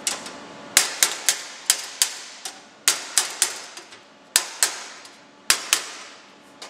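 Hammer and dolly tapping a thin steel panel, about fifteen sharp metallic taps at an irregular pace, some in quick pairs. The taps are knocking flat the panel that weld heat has distorted.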